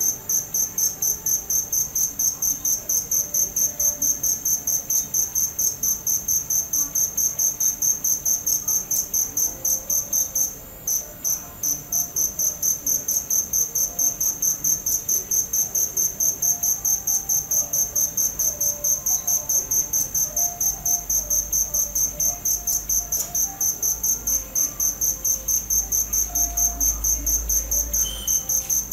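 Crickets chirping in a fast, even, high-pitched pulse of about five chirps a second, with a brief break about a third of the way in.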